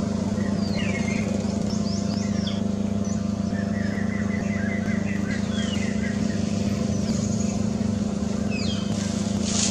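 Steady low motor drone, like an engine running nearby, with small birds chirping over it. A quick run of about ten even chirps comes in the middle, and short falling whistles come near the start and near the end.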